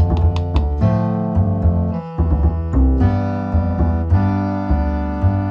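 Background piano music, a steady run of struck notes over a low bass line.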